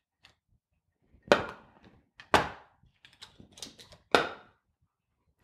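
Clear plastic packaging being handled and knocked against a hard surface: three sharp knocks, with lighter clicks and taps between the second and third.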